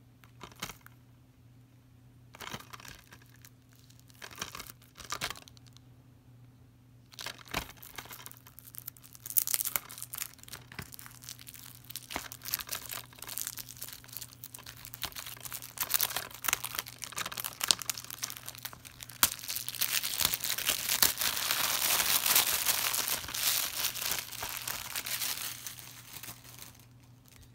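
Plastic shrink wrap being torn open and peeled off a DVD case, crinkling. A few separate crackles and taps come first, then a dense run of crinkling builds up and is loudest in the second half before stopping shortly before the end.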